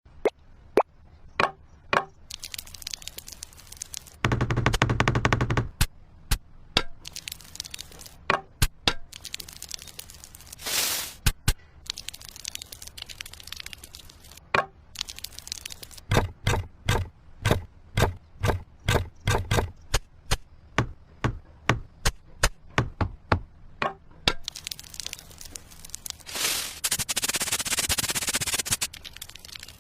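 Miniature brick-building sounds: many sharp taps and clicks as small bricks and tools are knocked and set, coming in quick runs in the middle. A brief buzz about four seconds in, and a longer stretch of scraping near the end.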